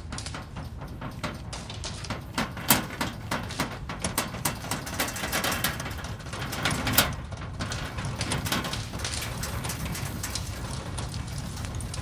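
Earthquake rumble sound effect: a steady deep rumble with dense crackling and rattling clicks over it, and sharper cracks about three and seven seconds in.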